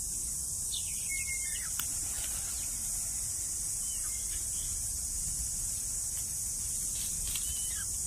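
A steady, high-pitched chorus of insects, with short chirps from small birds now and then.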